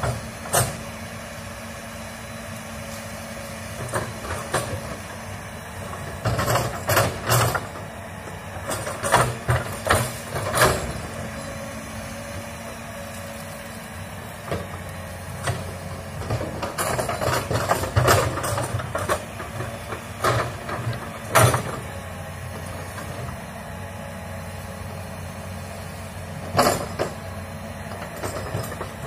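Komatsu hydraulic crawler excavator's diesel engine running steadily, with repeated metallic clanks and knocks from the arm and bucket as it digs and drags through soil and brush. The knocks come in clusters: a few seconds in, again just before halfway, more through the middle, and once near the end.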